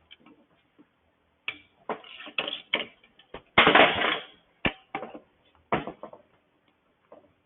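Metal clinking and clattering as a nut driver and loose bolts are handled during engine disassembly: a string of separate knocks over a few seconds, with one longer rattle about halfway through.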